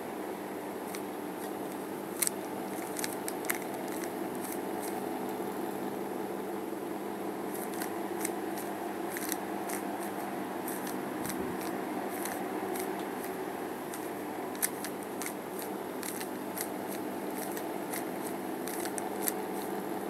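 Plastic 3x3 Rubik's cube being turned by hand: irregular clicks of the layers snapping round, some coming in quick runs. A steady background hum runs under them.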